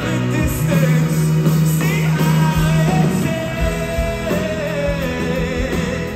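Live band music: a long, slightly wavering melody note held for several seconds over sustained bass and chords.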